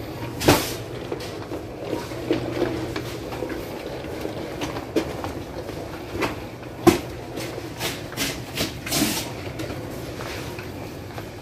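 Supermarket background noise with irregular clatter and knocks, the loudest about seven seconds in, and a low hum that fades after the first couple of seconds.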